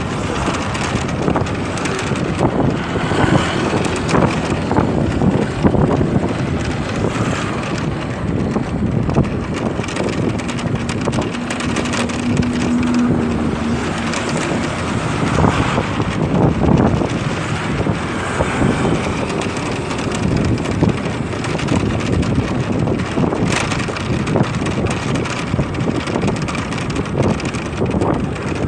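Wind rushing over the microphone while riding a motorcycle, with the bike's engine and road noise underneath. A low steady hum rises out of it for a few seconds about ten seconds in.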